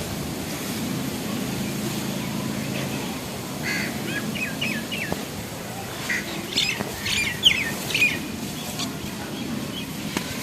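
Birds chirping in short runs of quick, falling calls, twice. A low steady hum runs through the first three seconds.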